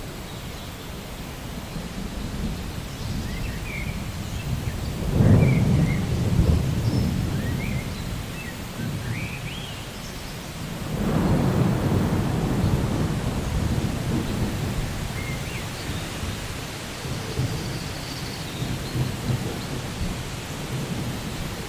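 Steady rain with thunder rumbling twice, first about five seconds in and again about eleven seconds in.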